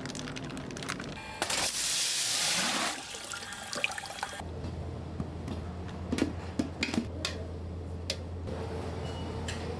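Water gushing loudly for about a second and a half, as from a kitchen tap. It is followed by a steady low hum with scattered clicks and knocks.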